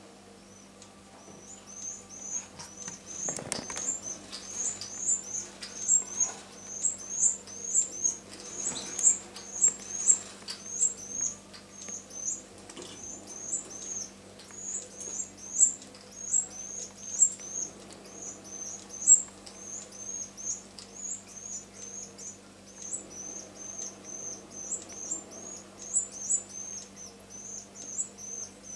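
Nestling canary begging for food: a steady run of short, very high-pitched cheeps, about two a second, from a hungry 14-day-old chick as the hen feeds it. A brief rustle or knock from the nest basket comes a few seconds in.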